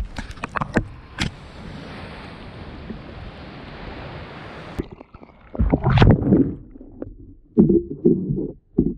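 Water lapping and wind on the microphone, with a few sharp knocks in the first second or so. About five seconds in, the sound turns dull and muffled as the microphone goes under the water, and heavy underwater sloshing and thumps follow.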